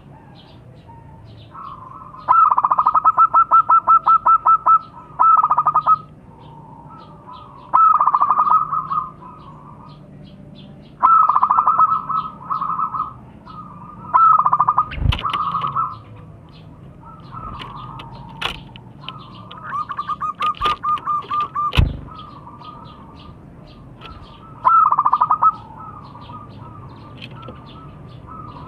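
Zebra dove cooing in repeated bouts of quick, pulsed notes, each bout lasting one to three seconds. A faint high chirping repeats throughout, and there are two sharp knocks, one near the middle and one a little later.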